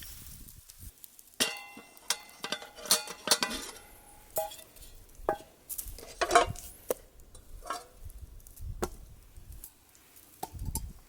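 Metal cookware and utensils being handled: a series of irregular clinks and knocks, some ringing briefly, busiest in the first few seconds.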